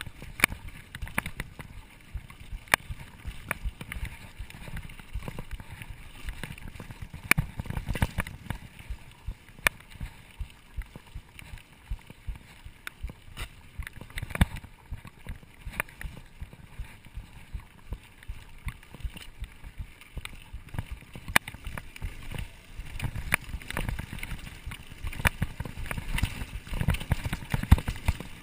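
Mountain bike ridden over a dirt trail: a steady low tyre-and-frame rumble with frequent irregular clicks and rattles as the bike jolts over roots and bumps.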